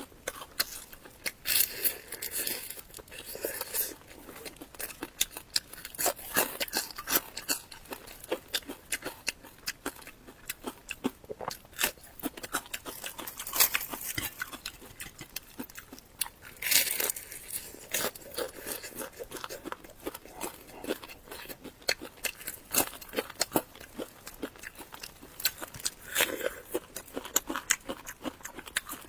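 Close-miked eating: a grilled salmon head being bitten and chewed, with many irregular sharp clicks and crunches.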